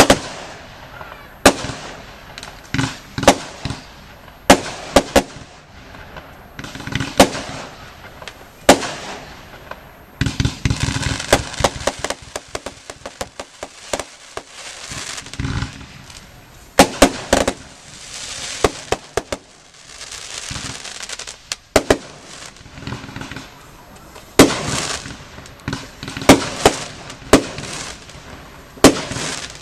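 Class F2 consumer fireworks going off: a string of sharp, loud bangs at uneven intervals, with stretches of dense rapid crackling in between.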